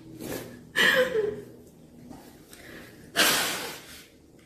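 A woman's breath sounds: a short voiced grunt with a falling pitch about a second in, then a loud, sharp rush of breath a little after three seconds that fades over about a second.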